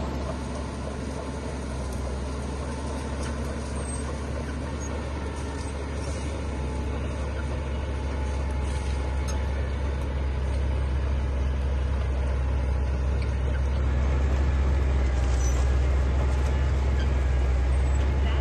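Heavy diesel construction machinery running: a deep, steady engine drone that grows gradually louder over most of the stretch, then holds level.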